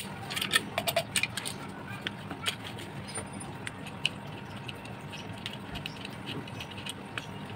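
Small metal clicks and clinks from bolts and a hex key being handled and fitted into a chainsaw adapter's holder plate on an angle grinder head, busiest in the first second or so, then only a few scattered clicks over a low steady background hum.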